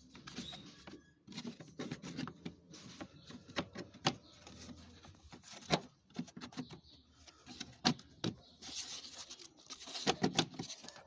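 Plastic car trim cover being handled and pressed into place: a series of sharp plastic clicks and knocks with rubbing and scraping in between.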